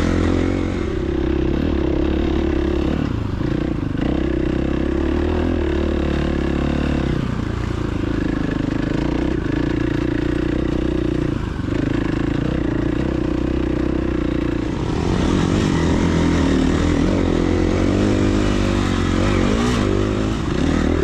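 Dirt bike engine running as it is ridden along a trail, its pitch shifting every few seconds with throttle and gear changes and growing louder and brighter near the end.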